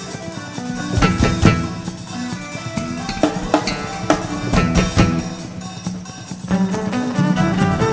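Live instrumental fusion band playing, with drum kit strikes and fills over held notes from keyboard and violin.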